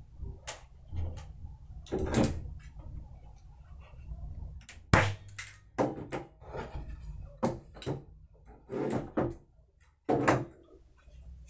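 Handling noises from stretching linen canvas over a wooden stretcher frame: cloth rustling, broken by a string of irregular knocks and clatters as the wooden frame is moved and set down. The sharpest knocks come about five seconds in and again near the end.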